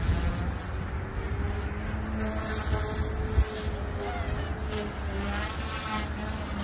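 OMP Hobby M2 V2 electric RC helicopter lifting off and flying: a thin, buzzing whine from its motor and rotors that glides up and down in pitch as it climbs and manoeuvres. Wind rumbles on the microphone underneath.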